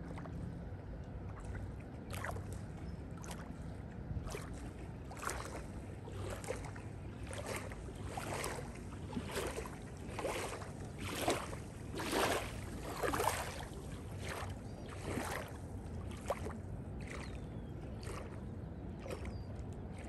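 Small river waves lapping against a sandy bank, a splash about once a second, loudest in the middle, over a low steady rumble.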